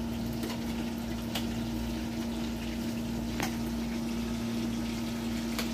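Food cooking in a frying pan on a stove: a steady low hum with hiss, and a few light clicks as a spatula stirs the pan.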